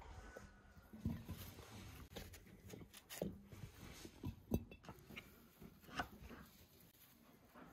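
Faint, scattered knocks and clicks, about one a second, from a knife cutting quince on a wooden board and quince pieces being dropped into large glass jars.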